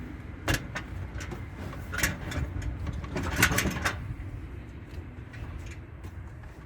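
A large toolbox being shifted on a wooden shelf, with a few knocks and scraping clatters, the loudest about three and a half seconds in, then quieter handling.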